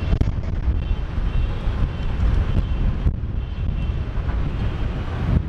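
Boeing 787-10 airliner on final approach, its jet engines a steady low rumble, mixed with wind buffeting the microphone.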